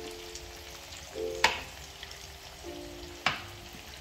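Quail pieces and onions sizzling in a ribbed grill pan while a wooden spatula stirs them, knocking sharply against the pan twice.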